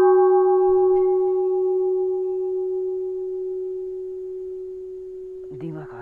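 Temple bell ringing on after a single strike, a long, slowly fading tone with fainter higher overtones that die away first.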